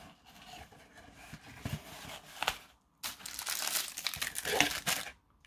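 Soft rustling of cloth and cardboard being handled, then, after a brief gap about three seconds in, louder crinkling of tissue paper being unwrapped by hand.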